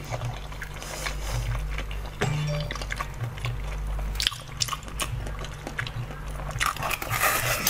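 A person chewing and biting into a soft, cabbage-shaped novelty food, with short wet clicks throughout and a louder bite near the end, over background music with a steady bass line.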